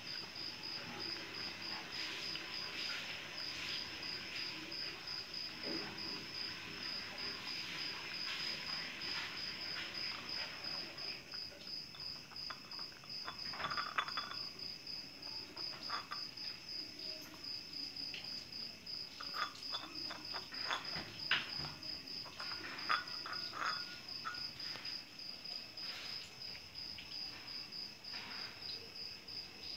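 An insect chirps steadily in rapid, even pulses, like a cricket. Over it, a cat eats from a glass bowl: scattered short clicks and clinks, a few of them sharper and louder in the second half.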